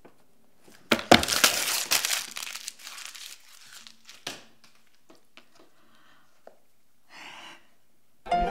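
Notebook paper being torn and crumpled by hand: a loud rustle about a second in, then scattered crinkles and small clicks.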